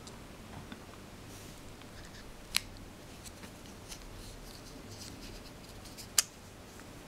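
Small marbles clicking and rolling inside a 3D-printed plastic Moebius torus pendant as it is turned in the fingers, with scattered light clicks and two sharper clacks a few seconds apart.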